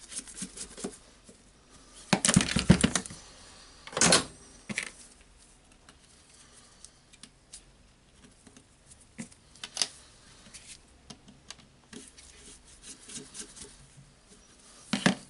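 Scattered clicks and knocks as a Makita cordless angle grinder's housing and small parts are handled during reassembly. The loudest are a cluster about two seconds in and a sharp knock about four seconds in.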